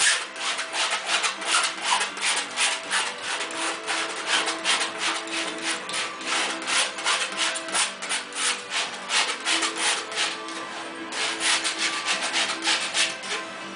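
Paint being scrubbed onto a primed stretched canvas in short, rapid back-and-forth strokes, a dry scratchy rubbing about three to four strokes a second, pausing briefly near the end.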